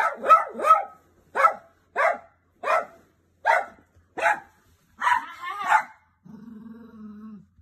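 Small poodle-type dog barking sharply about ten times, roughly one bark every half second to second, with a quicker run of barks about five seconds in, then a low steady growl for a little over a second near the end. The dog is protesting at its blanket being taken away.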